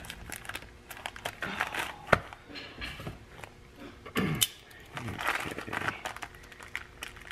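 Plastic pouch crinkling as it is squeezed and pulled at by hand and will not tear open, with scattered sharp clicks and knocks, the loudest about two seconds in.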